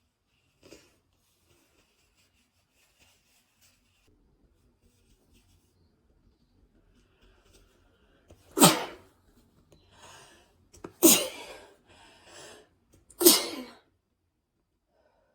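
A person with a head cold sneezing three times in quick succession, about two seconds apart, beginning a little past halfway through. Quieter breaths come between the loud sneezes.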